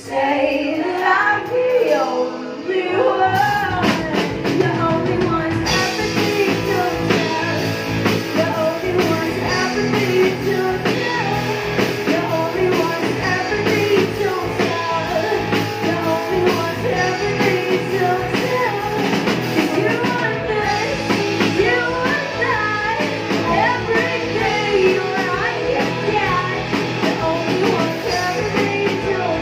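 Live rock band playing with a woman singing lead over bass guitar and the rest of the band. After a sparser opening, the full band comes in about three seconds in and keeps a steady beat.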